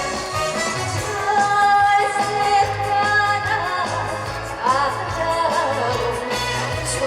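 Female trot singer singing live over an amplified backing track with a steady beat, holding a long note about a second in before moving into sliding, ornamented phrases.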